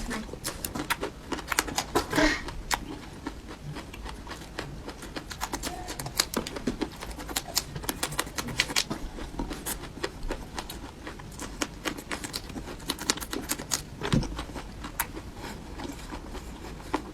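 Close-up eating sounds: chewing and smacking, a long run of irregular sharp clicks and crunches, with brief breathy mouth noises now and then.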